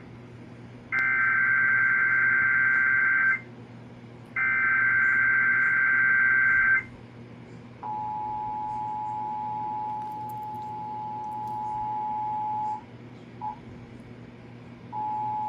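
Emergency Alert System tones from a TV broadcast. First come two SAME header data bursts, each a harsh warbling digital screech lasting about two and a half seconds. Then the steady two-tone attention signal sounds for about five seconds, breaks off briefly, and comes back near the end.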